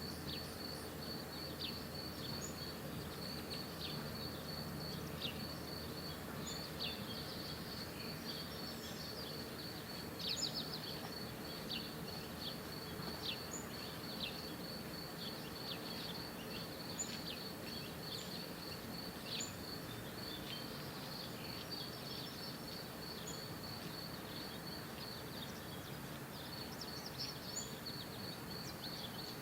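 Backyard birds giving short, sharp chirps over a steady high-pitched, rapidly pulsing insect trill, with a low steady hum underneath.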